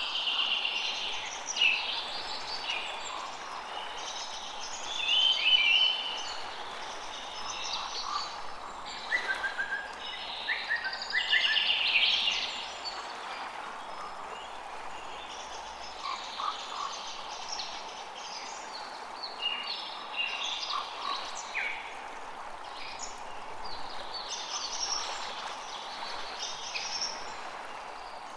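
Forest ambience: several birds singing and calling over a steady background hiss, busiest in the first half and thinner later on.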